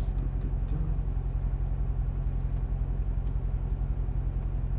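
Chevrolet Corvette Stingray's 6.2-litre V8 idling steadily with the car at a standstill, heard from inside the cabin, with a fast, even pulse.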